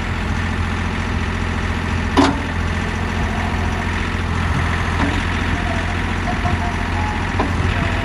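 Mahindra 1635 HST tractor's diesel engine running steadily while the backhoe is worked by its hydraulics. A sharp clank about two seconds in and lighter knocks midway and near the end come as the boom and bucket move.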